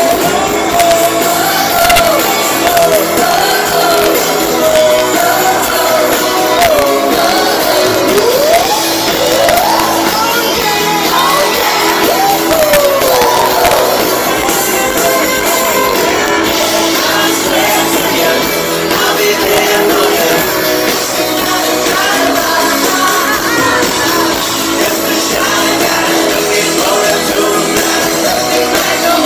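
Live rock band playing loud, with a male lead singer over electric and acoustic guitars and drums, heard from within the audience, with crowd shouts mixed in.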